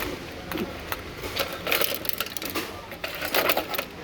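Rapid mechanical clicking and rattling of tools and parts during dismantling work, in two louder bursts, about a second and a half in and again about three and a half seconds in.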